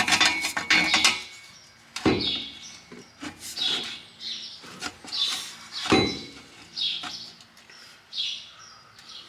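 A bird chirping repeatedly, short high chirps about once a second. Under it come metal knocks and rattles of exhaust pipe being handled: a clatter at the start and single sharp knocks about two and six seconds in.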